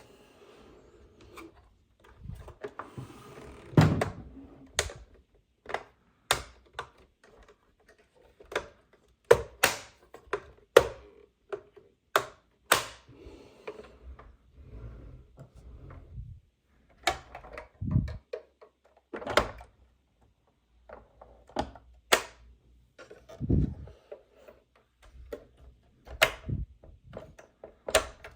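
Irregular clicks, knocks and thunks of hard plastic toy parts being handled and set down, one or two a second, with a few heavier thuds.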